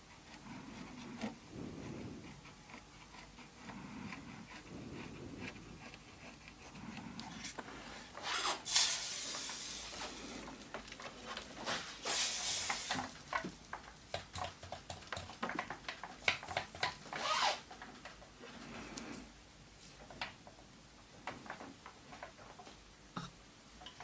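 Flux crackling and sizzling under a hot soldering iron as it is dragged over a BGA chip's solder pads to clear the old solder. There are irregular small pops throughout and a few louder hissing spurts partway through.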